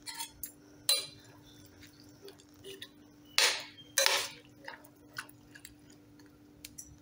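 A steel spoon stirring wet chopped vegetables in a metal pressure cooker pot, clinking and scraping against the pot, with two louder scrapes about three and a half and four seconds in.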